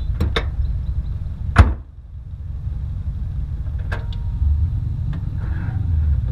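A car door shut hard with a loud thump about one and a half seconds in, over a steady low rumble. A few lighter clicks and knocks follow near the end as the car is handled.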